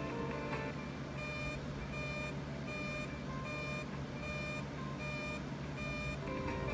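Weatherscan's severe-weather alert beeps played through a TV: the background music stops and about seven identical high electronic beeps sound, a little under one a second, then the music comes back near the end. The beeps go with the severe thunderstorm warning in effect on the broadcast.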